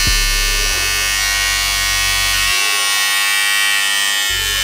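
Bevel Pro cordless clipper-trimmer running with its T-blade fitted: a steady electric buzz.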